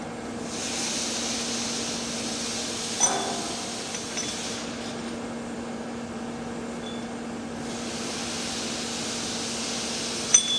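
TIG welding arc on a thick-walled steel pipe hissing steadily over a constant low machine hum. There is a sharp click about three seconds in and a couple of metallic clinks near the end.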